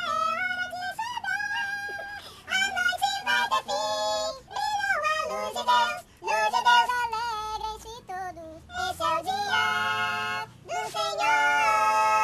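High-pitched, chipmunk-style voices singing a Portuguese-language song, several voices in harmony, in phrases broken by short pauses and ending on a long held chord.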